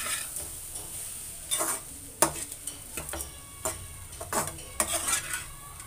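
A steel spatula stirring and scraping soaked flattened rice (aval upma) around a metal kadai over a faint sizzle, in irregular strokes about once a second.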